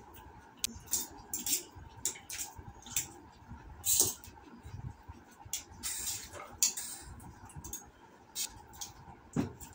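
Close-up eating sounds of chow mein noodles: wet mouth smacks and clicks while chewing, coming irregularly several times a second, with a couple of longer slurps.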